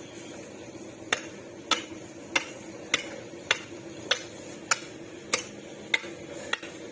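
Sharp clicks or taps repeating at an even pace, a little under two a second, starting about a second in, over a faint steady hum.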